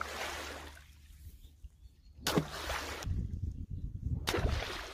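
Water splashing and sloshing as a long hooked pole is dragged through a shallow flooded ditch to haul out a fish trap, in a few separate swishes. A low rumble joins from about three seconds in.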